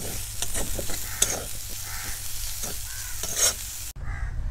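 Metal spatula stirring and scraping banana-flower sabzi in a steel kadhai, with sharp clicks of metal on metal over the steady sizzle of frying. The sizzling cuts off suddenly near the end, leaving a low rumble.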